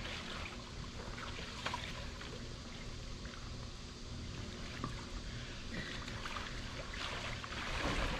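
Water splashing and sloshing in an above-ground swimming pool as swimmers move through it, with the splashes a little louder near the end.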